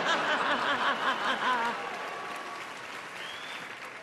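Studio audience laughing and applauding in response to a punchline. The crowd of voices dies away after about two seconds, leaving applause that gradually fades.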